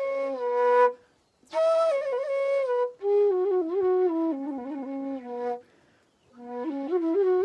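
Solo flute playing a Nepali folk tune in ornamented phrases, with short breath pauses about a second in and about six seconds in.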